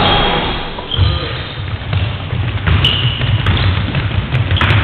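Basketball being dribbled on a wooden sports-hall floor, amid the thuds of players running and brief sneaker squeaks.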